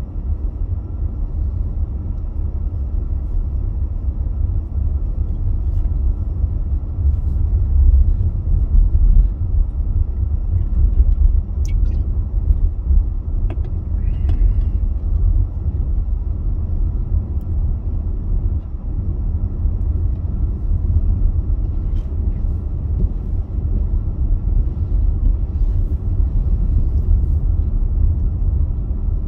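Steady low rumble of a car driving, heard from inside the cabin: engine and tyres on a wet road. A few faint clicks come in around the middle.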